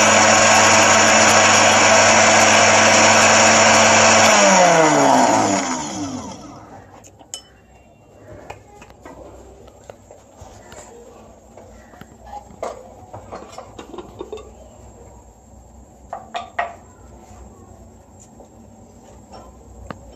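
Electric spice grinder running at full speed, grinding whole spices (cloves, black cardamom, cinnamon). About four seconds in it is switched off and the motor winds down with a falling whine over about two seconds. After that come a few light clicks and knocks.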